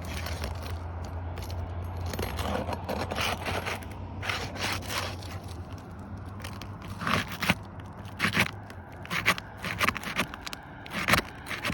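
Asphalt roof shingles being pried up and roofing nails worked loose: irregular scraping and crackling, with sharper scrapes and clicks coming more often in the second half.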